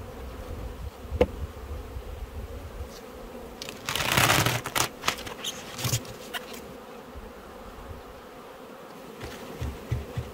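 Honeybee colony humming steadily in an opened hive box. About four seconds in there is a loud scraping rustle as the hive's cover comes off, with a few knocks from the wooden frames being handled.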